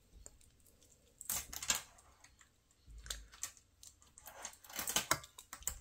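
Scattered small clicks and light metallic clinks, in little clusters, of a fitted steel watch bracelet being handled and fitted onto a Samsung Galaxy Watch case.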